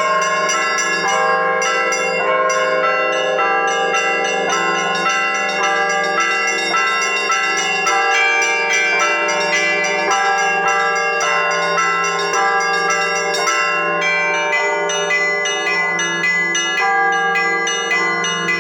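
Russian Orthodox church bells being rung in a continuous peal: many bells of different pitches struck in quick succession, over the steady hum of a low, large bell.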